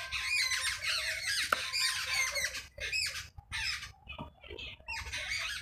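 Birds calling: many short, high chirps overlapping in quick succession.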